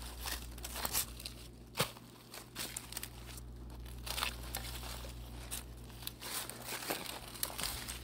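Dry fallen leaves rustling and crunching underfoot in irregular steps, with one louder crunch about two seconds in.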